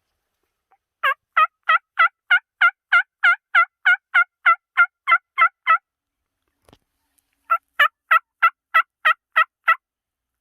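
Turkey yelping: a long run of about sixteen evenly spaced, loud yelps, about three a second, then after a short pause a second run of about eight.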